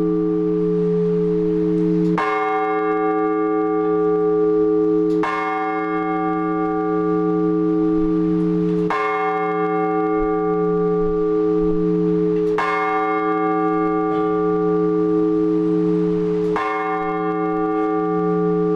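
Orthodox church bell tolled slowly, close up in the belfry: five strokes about three to four seconds apart, each ringing on into the next over a steady low hum.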